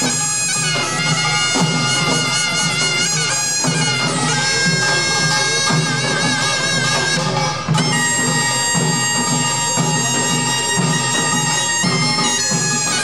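Korean pungmul music: a reedy taepyeongso shawm plays a held, wavering melody over the steady beat of janggu hourglass drums.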